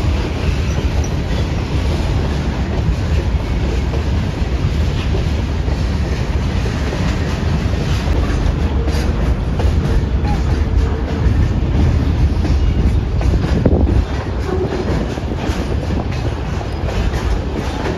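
A freight train of empty open coal wagons rolling through yard points behind a WAG-7 electric locomotive: a steady low rumble with wheels clicking over rail joints, the clicks growing busier about halfway through. The level drops abruptly about fourteen seconds in.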